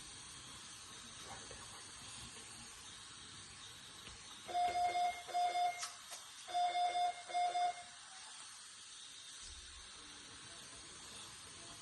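Medical equipment alarm in a newborn intensive care unit beeping: four short high beeps in two pairs about a second apart, starting about four and a half seconds in, over a steady hiss.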